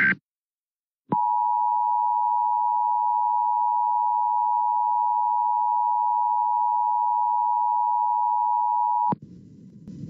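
The last instant of an EAS digital header burst. About a second later the Emergency Alert System two-tone attention signal sounds, a steady dual tone near 1 kHz, for about eight seconds and cuts off sharply. A faint low hum follows.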